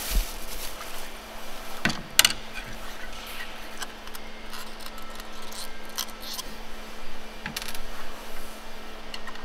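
Small metal model parts clinking and clicking as they are handled, with a few sharp metallic knocks about two seconds in and again later, over a steady low hum.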